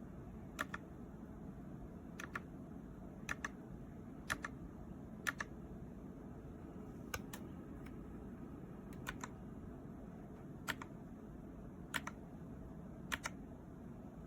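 Keyboard keys pressed one at a time, slow separate clicks about once a second, several of them doubled, over a steady low hum.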